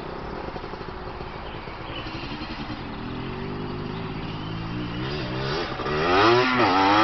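Small Yamaha youth quad's engine approaching and growing steadily louder, its pitch rising and falling in the last couple of seconds as the rider works the throttle.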